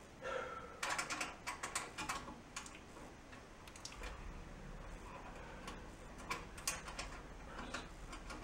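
Irregular metal clicks and knocks as burner parts of an old gas range are handled and fitted back in place by hand, bunched near the start and then scattered.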